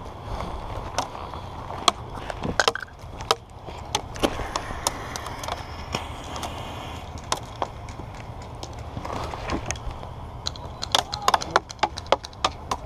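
Scattered sharp clicks and cracks of airsoft gunfire and BBs striking wood, with a quick cluster of them near the end and a soft hiss in the middle.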